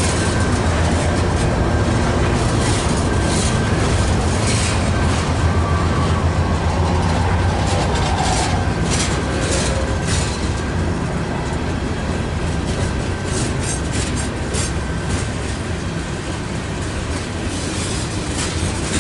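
Loaded coal cars of a freight train rolling past: a steady low rumble of steel wheels on rail, with irregular clicks as the wheels pass over rail joints.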